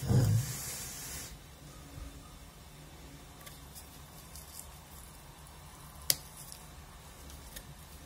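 Scissors snipping the shoot tips off an azalea, with one sharp snip about six seconds in and a few fainter clicks around it. The sound opens with a brief thump and rustle as the plant and branches are handled.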